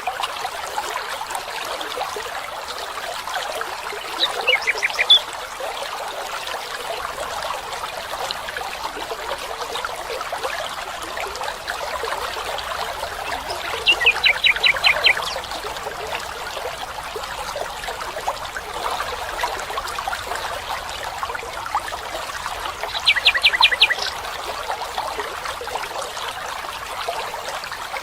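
Steady trickle of a running stream, with a bird calling three times in short, rapid runs of repeated notes, about four seconds in, mid-way and near the end.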